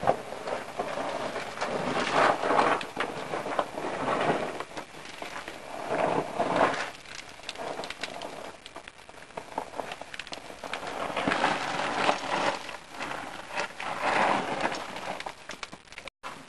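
Rustling and scraping close to the microphone in irregular bursts, with fine crackling clicks, several times over.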